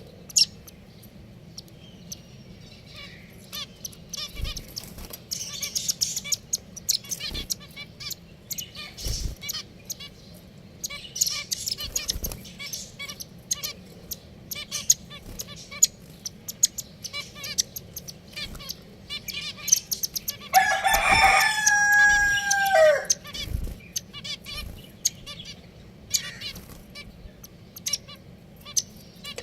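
Pet finches chirping with short high calls and clicks, and a rooster crowing once about two-thirds of the way through, one long call that drops in pitch at its end.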